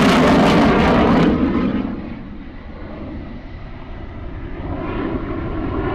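Saab Gripen fighter jet's engine noise, loud for the first second or so, then dropping away sharply. A quieter, steady jet rumble follows and slowly builds again toward the end.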